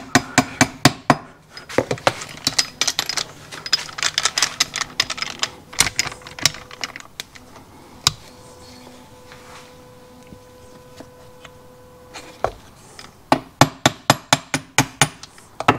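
Quick runs of light taps, about four or five a second, from a plastic-faced mallet driving a transmission shaft and gear down into a motorcycle crankcase where the gear is hanging up on the countershaft; the runs come at the start and again near the end. In between, small steel gears and shafts click and clink as they are handled.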